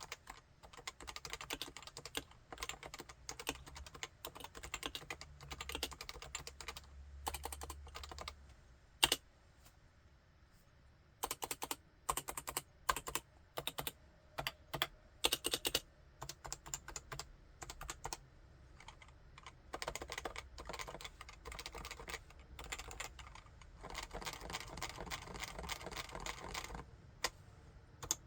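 Topre Realforce 87UW tenkeyless keyboard with Topre electrostatic capacitive switches being typed on: quick runs of keystrokes broken by short pauses. A single sharp stroke stands out about nine seconds in, followed by a brief lull and a few seconds of separate, louder strokes before steady typing resumes.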